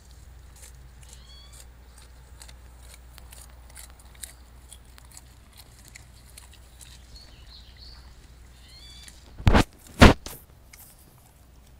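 Black bears rustling and crunching through undergrowth, with faint crackles and snaps throughout and a bird chirping twice. Near the end come two loud thumps about half a second apart.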